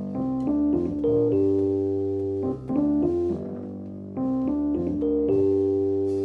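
Solo keyboard with an electric-piano or organ-like tone playing a slow intro: a few quick notes climbing into long held chords, the phrase coming round again about four seconds in.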